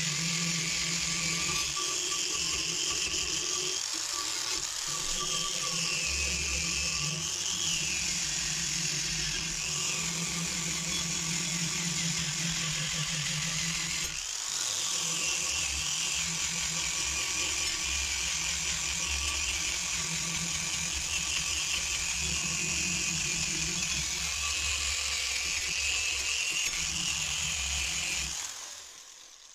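Handheld angle grinder with an abrasive wheel running against a rusty steel shovel blade, grinding off rust. Its high whine dips and recovers again and again as the wheel is pressed into the metal and eased off. The sound cuts away sharply near the end.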